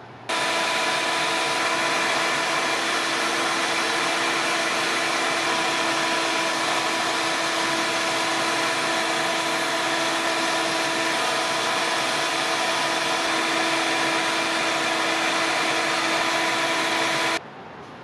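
Handheld rotary tool spinning a small sanding drum against the wrapped joint of a bamboo bike frame, together with a vacuum hose sucking up the dust: a steady whine over a rushing hiss. Both start suddenly just after the beginning and cut off together near the end.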